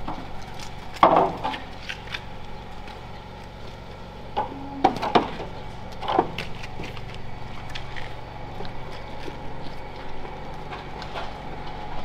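A handful of sharp metallic clanks and knocks as a steel manure auger is lifted and shifted in its floor trough, the loudest about a second in, over a steady low hum.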